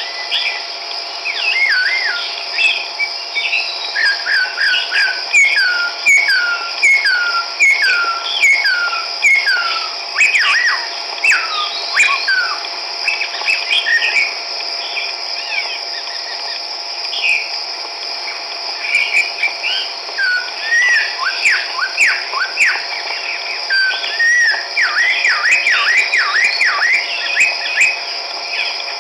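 Chestnut-backed laughingthrush singing: a run of downslurred whistled notes, nearly two a second, then scattered overlapping notes and another quick run near the end, over a steady high-pitched buzz.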